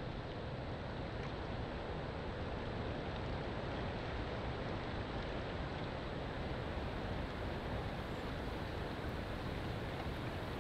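Steady rushing of moving water, an even noise heaviest in the low end with no separate splashes.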